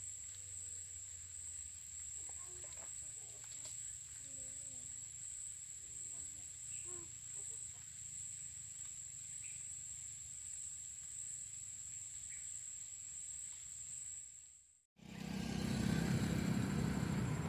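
Steady high-pitched drone of insects over a faint low hum. About fifteen seconds in it cuts off abruptly, and a loud low rumble of an aircraft passing overhead takes over.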